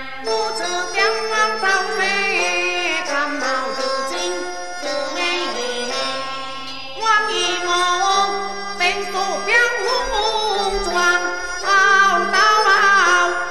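Teochew opera music: a traditional Chinese ensemble plays a melody with sliding, wavering notes.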